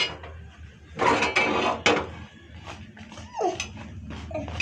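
A steel spoon clinks and scrapes against a flat tawa and a small steel oil bowl while oil is spread over a frying paratha. There are a few sharp clicks, a clattery stretch about a second in, and a short falling squeak a little past three seconds.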